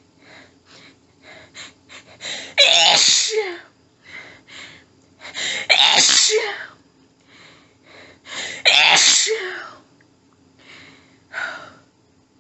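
A woman sneezing three strong times, about three seconds apart, each sneeze led in by a quick run of short hitching in-breaths. A smaller, shorter breath-like burst follows near the end.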